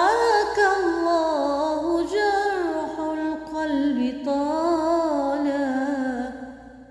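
A woman singing unaccompanied: one long wordless melismatic phrase that winds up and down with vibrato, then fades out near the end.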